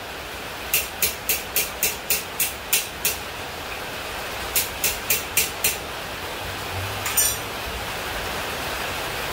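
A 2-pound round hammer tapping hot steel pipe on an anvil in quick, light, ringing blows, about four a second: a run of about ten, a pause, then five more. A single clank comes a little after seven seconds in.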